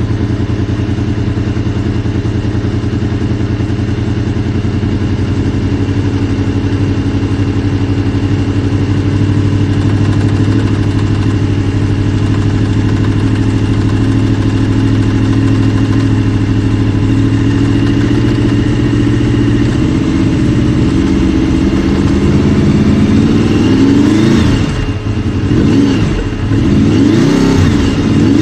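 2002 Honda VFR800 VTEC's V4 engine running at a steady speed, then revved up and down several times in quick blips near the end. It is the engine whose abnormal knock the owner hears only between 1500 and 2000 rpm once it is warm, and which seems to come from the right side of the engine.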